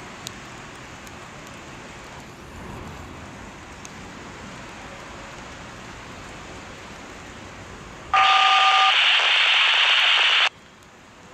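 Steady background hiss, then a railroad scanner radio breaks in loudly: a two-tone DTMF beep over a burst of radio static that cuts off suddenly about two seconds later.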